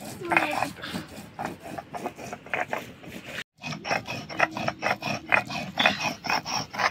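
Stone muller scraping back and forth on a flat grinding stone (shil-nora), grinding coriander and cumin seeds into a wet paste: rhythmic rasping strokes, about three a second, breaking off for a moment about halfway.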